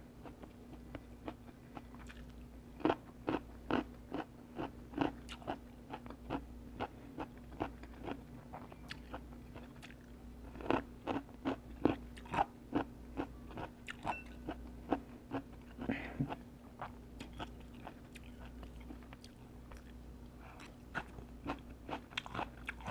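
Close-up chewing of crisp, crunchy food: a run of crunches about two or three a second for some ten seconds, then sparser crunches, over a faint steady hum.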